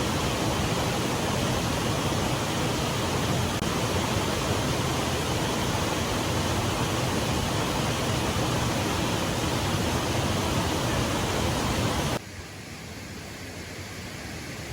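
Steady rushing noise that drops suddenly to a quieter hiss about twelve seconds in.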